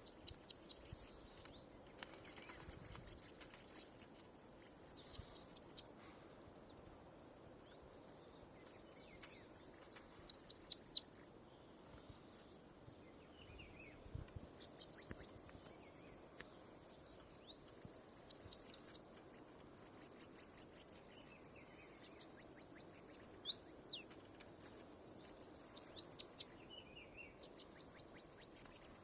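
Bananaquit (sibite) singing: repeated high, rapid, buzzy trilled phrases, each about one to two seconds long, with short pauses between them.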